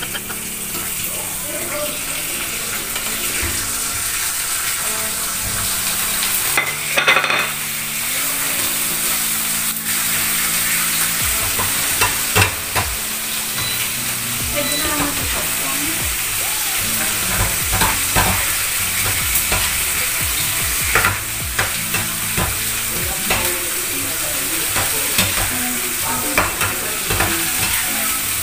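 Food sizzling as it fries in a hot pan, with a utensil stirring and now and then clicking and scraping against the pan.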